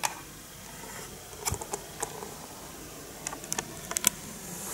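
A handful of light clicks and taps from a handheld HoldPeak HP-90EPD digital multimeter being held and handled, in one cluster about a second and a half in and another around three and a half to four seconds in.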